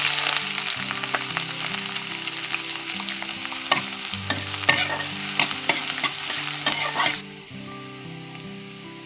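Chopped onion and green chilli sizzling in hot oil in a stainless steel kadai for a tempering, stirred with a spatula that scrapes and taps against the pan, most often between about four and seven seconds in. The sizzling drops off abruptly about seven seconds in.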